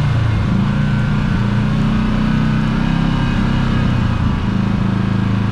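Kawasaki Teryx KRX side-by-side's parallel-twin engine running at fairly steady revs, wavering slightly, with a brief dip about four seconds in.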